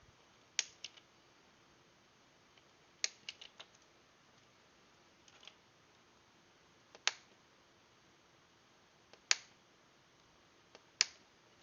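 Cutters snipping off the over-long soldered legs of a rotary encoder on a keyboard circuit board: a series of sharp single clicks, some in quick pairs, spaced a second or two apart.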